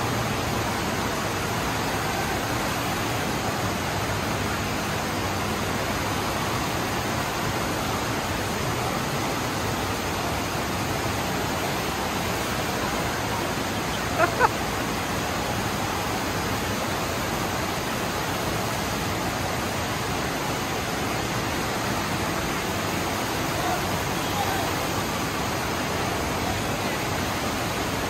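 FlowRider surf simulator's pumped sheet of water rushing steadily up the padded slope. Two brief sharp sounds stand out about halfway through.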